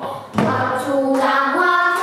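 A group of children singing pansori together, with a sharp percussive stroke about a third of a second in as the voices come back in on sustained, stepping notes.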